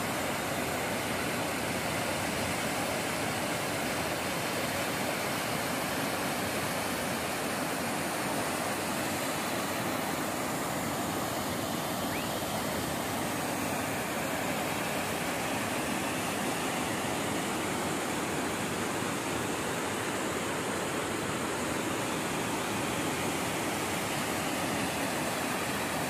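Small waterfall pouring over a rock ledge into a pool: a steady, unbroken rush of falling water.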